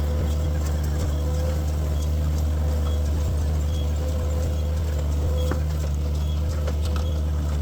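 Tractor engine running steadily with its baler working, a constant low drone with scattered light clicks and knocks from the machinery.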